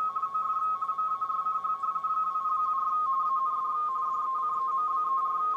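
Radio teletype (RTTY) signal from a Drake 2B receiver's speaker: two close audio tones, mark and space, switching back and forth rapidly as the teletype signal is keyed.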